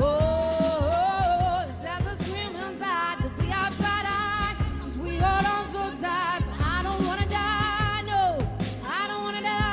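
Pop song: a woman sings long, held notes with a wide vibrato over the band's accompaniment.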